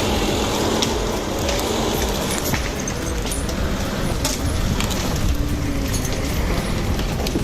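Heavy machinery running steadily, a low engine rumble with scattered metallic clanks and rattles.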